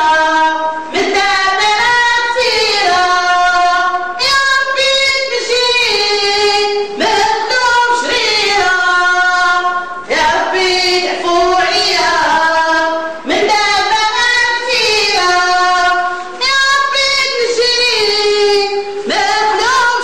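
A high-pitched voice singing a melodic line with no instruments, in phrases of two to three seconds that bend and glide in pitch, with short breaths between them.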